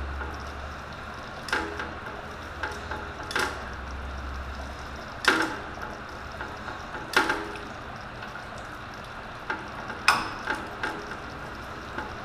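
A hand tool clinking against metal on a car's underside: several sharp clanks a second or two apart with lighter ticks between them, over a low hum that stops about five seconds in.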